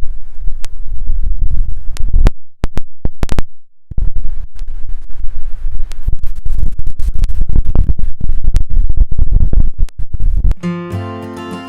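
Snowstorm wind buffeting the microphone: a loud low rumble with crackles that drops out for about a second and a half about two seconds in, then returns. Acoustic guitar music starts near the end.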